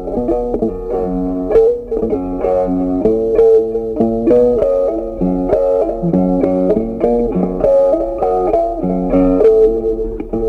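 Background music: a plucked guitar melody with a steady, even rhythm.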